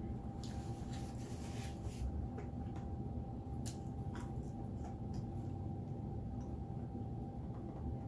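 Soft clicks and light rustling, several in the first two seconds and a couple more near the middle, over a steady low background hum with a faint constant tone.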